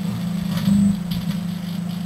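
Microwave oven running with its steady hum while the charred object inside arcs and crackles, with one louder burst of arcing just over half a second in.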